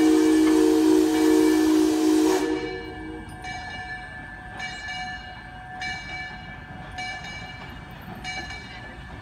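Steam locomotive's chime whistle blowing a long chord, loud over a hiss of steam, cutting off about two seconds in. After that the locomotive's bell rings steadily, a stroke a little more often than once a second.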